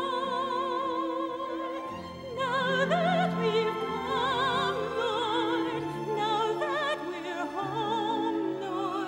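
Slow orchestral song: a singer holds long notes with heavy vibrato over sustained orchestral accompaniment, with a brief lull about two seconds in.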